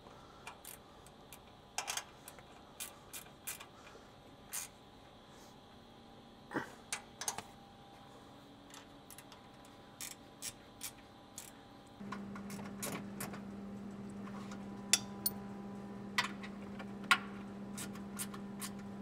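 Scattered metallic clicks and clinks of hand tools on steel bolts and brackets while the bumper bracket hardware is tightened, a few at a time at uneven spacing. About twelve seconds in, a steady low hum starts underneath.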